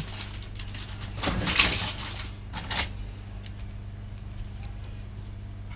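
Small scraping and clicking of hands working parts loose inside an opened PS5 controller, loudest about a second and a half in, with a few short sharp clicks soon after. A steady low hum runs underneath.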